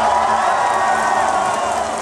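Large stadium crowd cheering and shouting, many voices at once.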